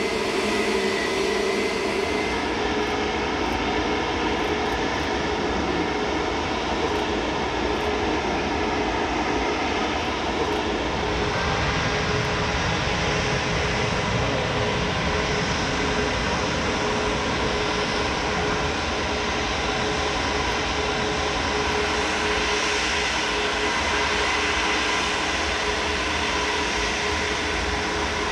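Jet airliner engines running close by: a steady rush with a held whine through it.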